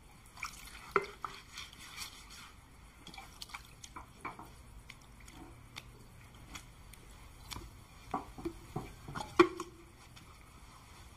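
Water dripping and splashing softly in a wash basin as feet are washed by hand: scattered small drips and splashes, the loudest about nine seconds in.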